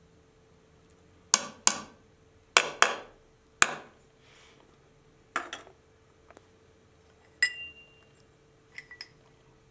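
Metal spoon knocking and clinking against a stainless steel cooking pot: a series of sharp knocks, several in quick pairs, one near the end leaving a short ring.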